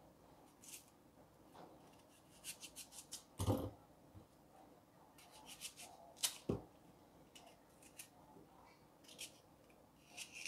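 Small kitchen knife cutting through a crisp apple in the hand: short, crisp slicing strokes, some in quick runs of four or five. Two dull knocks stand out, about a third of the way in and again past halfway.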